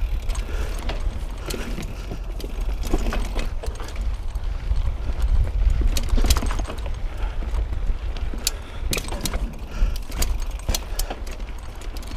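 Mountain bike rattling and clattering over roots and rocks, with irregular sharp knocks and a steady low rumble from the ride.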